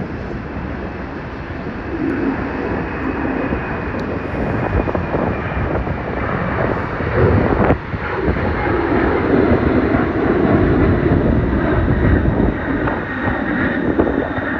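Jet airliner engines, a loud continuous rumble with a faint high whine over it.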